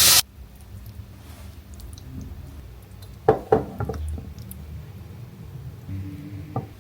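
Faint room sound with a low hum and two sharp knocks a moment apart, about three seconds in.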